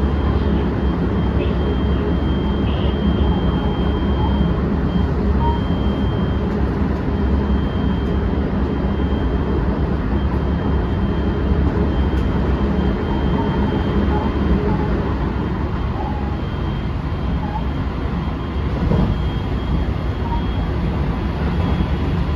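Running noise inside a JR West 223 series 2000 subseries electric train car, a motor car with Toshiba IGBT VVVF drive, at speed. A steady deep rumble of wheels on rails and running gear is heard, with a faint thin high tone that fades in and out.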